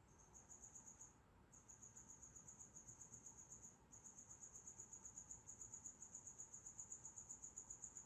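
Faint cricket chirping: a high, rapid pulsed trill of about nine pulses a second. It comes in three runs, with short breaks about a second in and just before the four-second mark.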